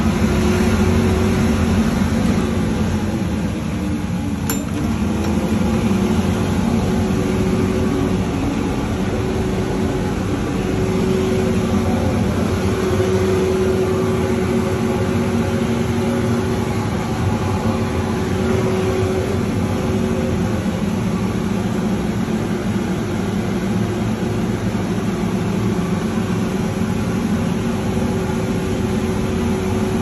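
Commercial tumble dryer running with a steady mechanical hum and rumble. A faint click sounds about four and a half seconds in.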